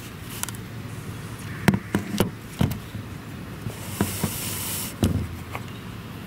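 Handling noise of a camera being moved and set down on a hard surface: a run of sharp knocks and taps a couple of seconds in, a short hiss, then a heavier thump about five seconds in.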